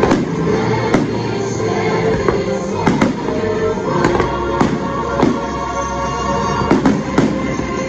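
Aerial firework shells bursting overhead in a run of sharp bangs, about one a second at irregular spacing, over the show's music playing on loudspeakers.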